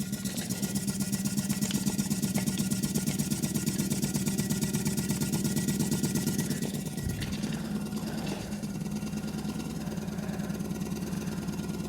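Paint shaker running with a can of body filler in it: a steady motor hum under a rapid, even rattle of the shaking can. The sound drops a little in level about seven seconds in.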